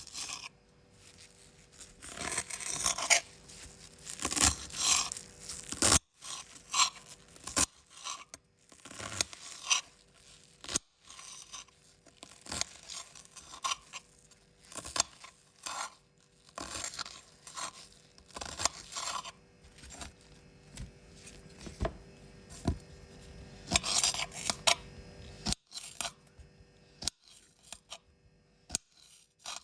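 Vegetables being cut with a knife: an irregular run of crisp cuts and crunches, several a second, with a few sharp clicks now and then.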